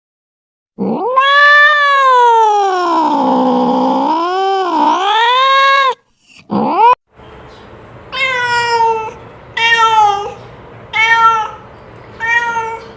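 Domestic cat calling: one long drawn-out yowl whose pitch rises, dips and rises again over about five seconds, then a short call, then four shorter meows about a second and a half apart over a faint hiss.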